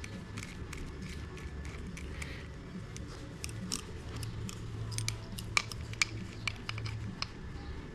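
Small metal parts of an air nibbler clicking and clinking as the new die and anvil are handled and fitted into the tool, over a low steady hum. The clicks grow busier about halfway through.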